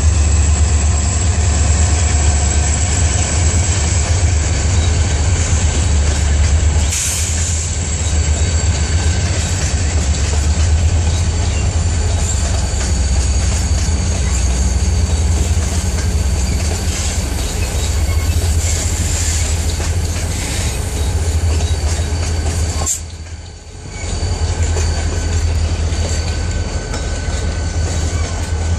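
Freight train rolling past close by: a steady rumble of steel wheels on the rails with clickety-clack over the joints and a thin, steady high-pitched wheel squeal. The sound dips away for about a second near the end.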